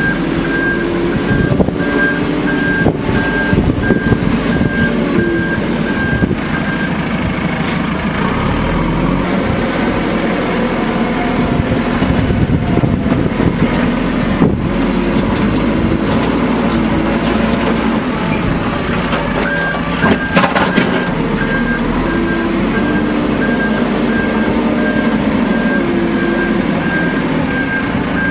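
JCB backhoe loader's diesel engine running and changing pitch as it works under load. Its reversing alarm beeps steadily for the first several seconds and again from about two-thirds of the way through. There is a brief sharp knock around two-thirds in.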